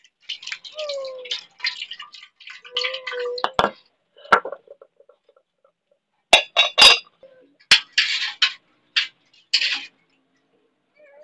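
Kitchen utensils handled at a stone grinding slab: a run of sharp clinks and knocks, a few of them loud, with brief scraping sounds in between.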